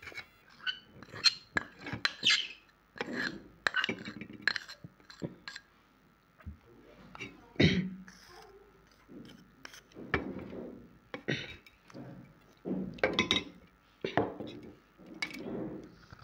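A spoon clinking and scraping against a glass bowl as dry, crumbly chalky pieces are broken apart by hand, a run of sharp clicks and crackles. Near the end, a bite into a hard chalky disc.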